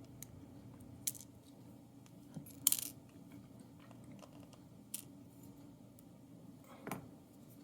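Small metal lock parts clinking: a few short, sharp clicks and taps as the last pin is worked out of a padlock's core, the loudest a quick cluster about a third of the way in.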